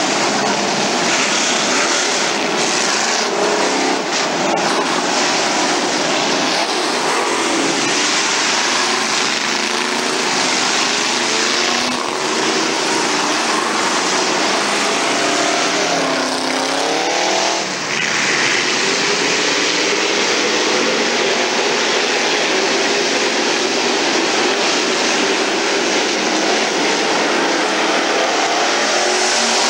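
A field of street stock race cars lapping a dirt oval, their engines running hard the whole time, with pitch rising and falling as cars pass. A bunch of cars sweeps past together a little after halfway.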